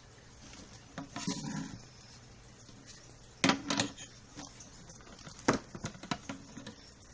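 Hard parts being handled and set down on a bench: a rustle about a second in, then several sharp clicks and knocks, loudest a little past halfway, with lighter taps between.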